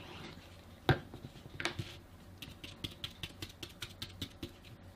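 Light, quick tapping and scratching of a small glue brush working glue along the edge of a chipboard piece, at about four to five strokes a second in the second half, with a single sharper knock about a second in.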